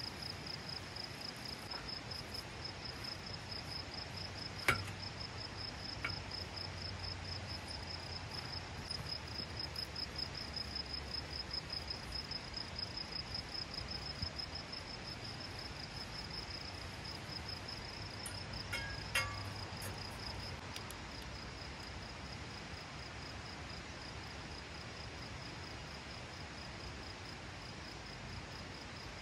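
An insect calling steadily in a high, evenly pulsing chirp, with two sharp clicks, one about five seconds in and one near nineteen seconds.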